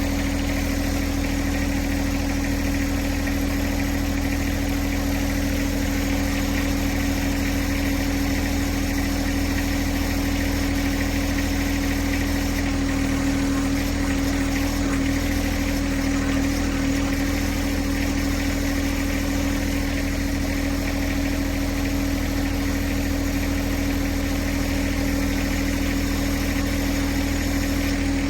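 John Deere 1026R compact tractor's three-cylinder diesel engine running steadily at a constant speed.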